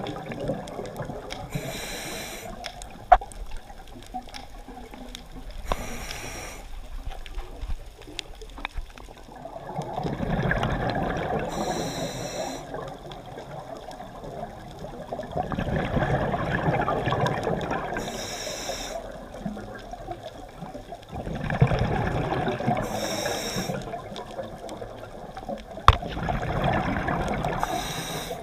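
Scuba diver breathing through a regulator, heard underwater. About five times a short hissing inhale is followed by several seconds of bubbling exhale, with a few sharp knocks, the loudest about three seconds in and near the end.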